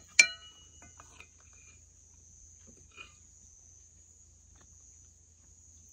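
One sharp clink of tableware just after the start, ringing briefly, then a few soft clicks of a spoon on dishes, over the steady high chirring of crickets.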